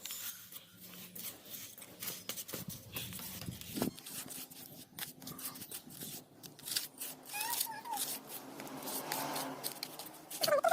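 Scraping and tapping of wet cement being worked into a bucket: many short, uneven clicks and scrapes. There is a brief animal call about seven and a half seconds in.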